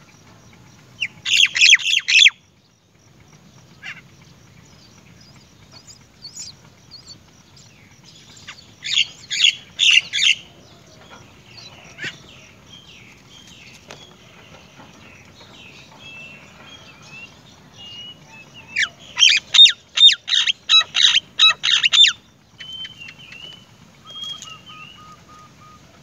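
Great myna nestlings begging: three bursts of rapid, shrill chirping, about a second, two seconds and three seconds long, the last and longest near the end. Softer scattered chirps come between the bursts.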